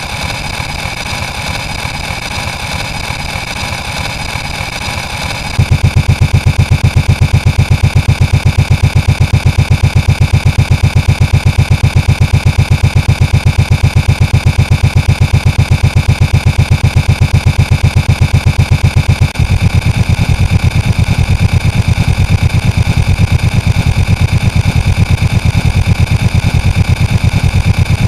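A loud engine-like sound effect. A fast, evenly pulsing low rumble starts about five seconds in, and its character shifts again about nineteen seconds in.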